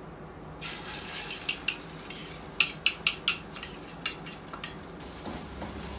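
A utensil clicking and scraping against a ceramic bowl as beaten egg is scraped out into a frying pan: a quick run of sharp taps, thickest in the middle.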